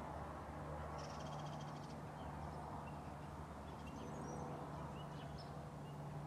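Hunter Stratford II ceiling fan running steadily on medium speed: an even motor hum with a soft rush of air. Faint bird chirps sound through it.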